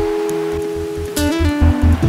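Background music led by guitar, with held notes over a regular low beat.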